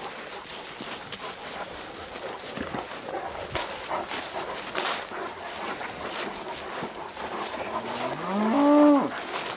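A cow moos once near the end, one call that rises in pitch and then holds for about a second. Before it, steady rustling and crackling of footsteps through grass and dry cut corn stalks.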